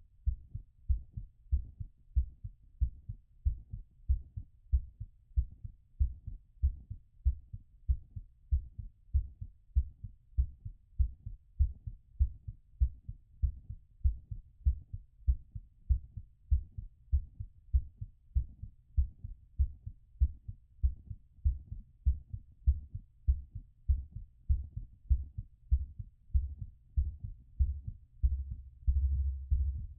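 Heartbeat heard through a stethoscope during recovery after exercise: regular low thudding beats, a little under two a second. A louder low rumble joins the beats near the end.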